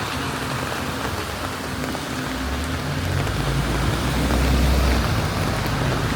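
Steady rain falling on the street, with a motor vehicle passing: its low rumble swells from about two seconds in, is loudest near the end, then eases off.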